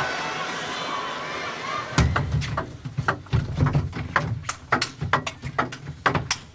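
Table tennis rally: a fast, irregular run of sharp clicks as the celluloid ball strikes bats and table, with dull thumps beneath. It begins about two seconds in, as a steady crowd hum drops away.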